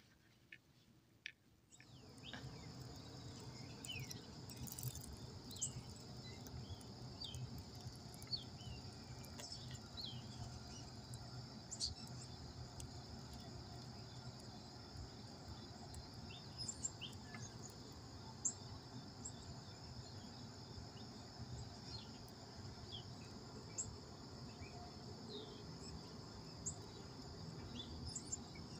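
Outdoor insect chorus: a steady high-pitched trill of insects, with scattered short bird chirps and a faint low hum. It starts about two seconds in, after a moment of near silence.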